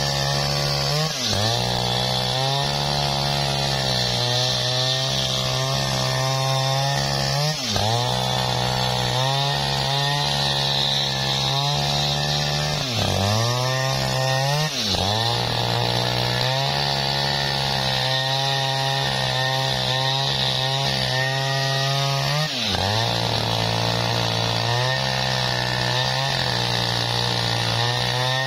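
Jonsered Turbo two-stroke chainsaw at full throttle ripping lengthwise through a jackfruit log. The engine pitch dips sharply and recovers about five times as the chain bogs in the cut.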